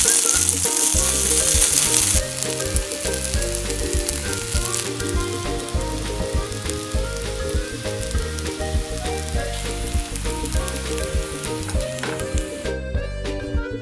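King oyster mushroom and crab-stick pancakes sizzling in hot oil in a pan. The sizzle is loud for the first two seconds, drops suddenly to a softer steady sizzle, and stops near the end.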